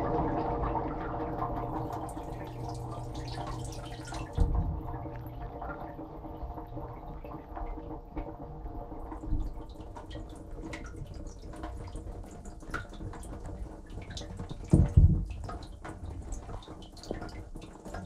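Bosch dishwasher heard from inside the tub: a steady pump hum that slowly fades as the spraying ends, with water dripping and trickling throughout. Two dull thumps come about four seconds and fifteen seconds in.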